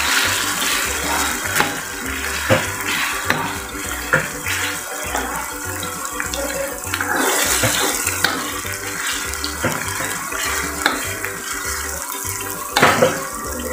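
Ground chilli spice paste sizzling in hot oil in a wok while a metal spoon stirs and scrapes through it, with a few sharp clinks of the spoon against the pan. The paste is being fried until fragrant.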